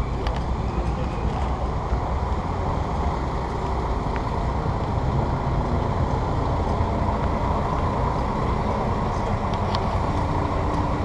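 Steady city street traffic noise from passing cars and buses, with a city bus close by near the end adding an engine hum.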